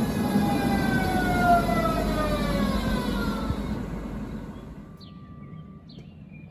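Berlin S-Bahn electric train running with its motor whine gliding down in pitch while the rumble of the train fades away over about four seconds. A few short bird chirps follow in the quiet.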